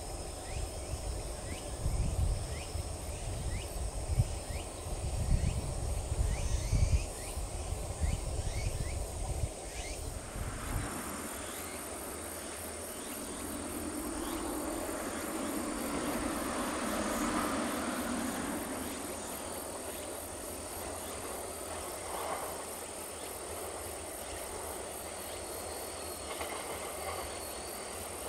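Insects chirping while gusts of wind buffet the microphone. About halfway through, a JR West 521-series electric train's running noise swells as it approaches round a curve, over a steady insect trill.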